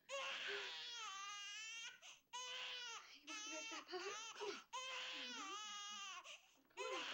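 An infant crying: a run of long, high wails, about five, each broken off by a short catch of breath.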